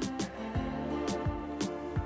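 Instrumental background music: sustained notes with a light, repeated percussive beat.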